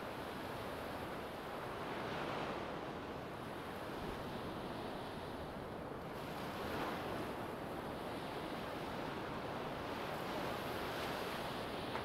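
Small sea waves breaking and washing up a sandy beach: a continuous rush of surf that swells a little as each wave comes in, about every four to five seconds.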